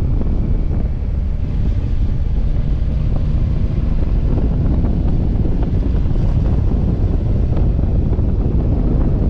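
Steady wind rush on the microphone from riding, over a Yamaha Tracer 9 GT's three-cylinder engine running at an even cruising pace.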